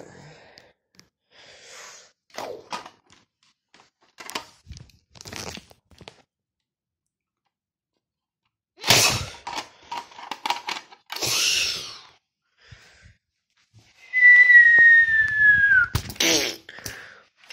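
Clicks and clattering of a plastic Nerf blaster being handled, louder about halfway through, then one whistled note about two seconds long that slides slightly downward near the end, followed by a couple of clicks.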